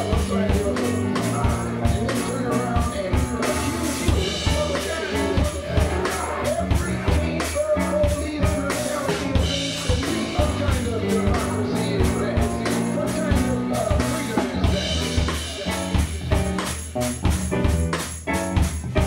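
Live band playing: drum kit with cymbals keeping a steady, even beat over electric bass and keyboards.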